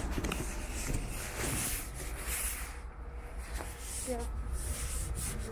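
Footsteps and phone-handling noise while walking, over a steady low rumble of wind on the microphone, with a few light clicks and a brief murmur of a voice about four seconds in.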